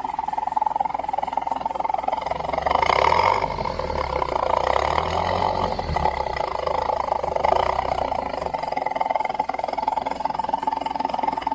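Carbureted Suzuki Carry Futura engine running through an aftermarket 'ngorok' exhaust muffler, which gives it a deep, snoring rumble. The engine is revved up about three seconds in and its pitch keeps shifting for a few seconds after.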